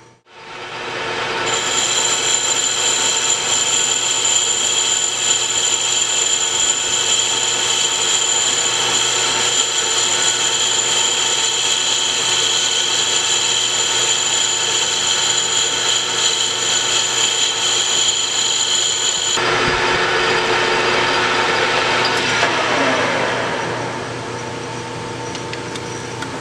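Hendey metal lathe turning a stainless steel tube, taking a light skim cut on the outside diameter, with a steady high whine from the cut. The cut stops about two-thirds through, and the spindle winds down near the end.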